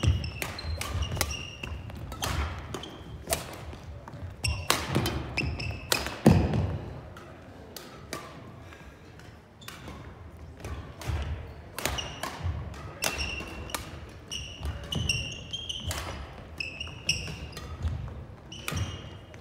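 Badminton play in a gym hall: sharp smacks of rackets hitting the shuttlecock and feet thudding on the wooden court floor, with short squeaks of court shoes between. The loudest hit comes about six seconds in, and play is quieter for a few seconds after it.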